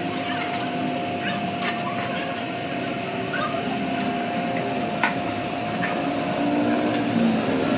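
A workshop machine running steadily, a constant hum and whir, with a few sharp clicks; the sharpest click comes about five seconds in.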